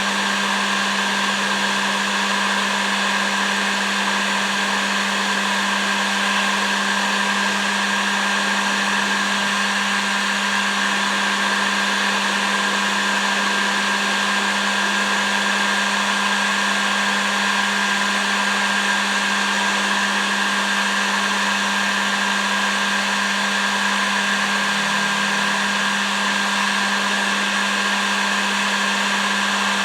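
Heat gun blowing steadily, a constant fan rush with a low motor hum and a thin whine, used to shrink heat-shrink tubing onto plier handles.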